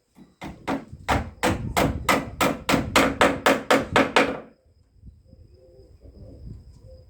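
Hand hammer striking into wood, about a dozen quick, even blows at roughly three a second, each with a short ring, as when driving a nail, stopping after about four seconds.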